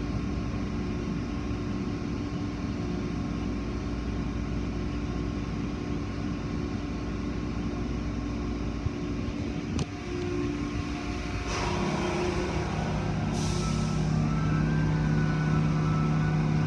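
Automatic tunnel car wash machinery heard from inside the car: a steady mechanical hum with water spraying on the windows. There is a click just under ten seconds in, then a lower hum sets in with two short hisses of spray.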